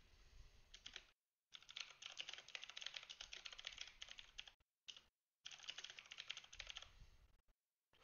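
Faint typing on a computer keyboard: rapid runs of keystrokes, broken by two short pauses about a second in and just before the halfway mark.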